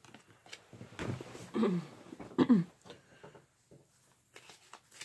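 Trading cards being shuffled and handled, with a brief rustle and small clicks, broken by two short vocal sounds that fall in pitch.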